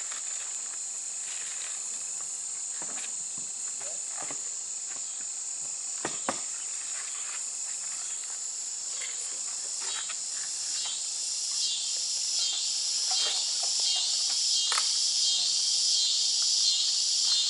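Outdoor insect chorus: a steady high-pitched drone of crickets, joined about ten seconds in by a pulsing insect call, repeating about twice a second, that grows louder toward the end. A faint click about six seconds in.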